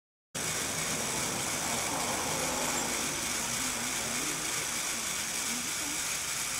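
Motorised LEGO Technic model detachable gondola running: a steady mechanical whir of its motors and gearing with a constant hiss, with faint wavering tones, starting just after a short silence.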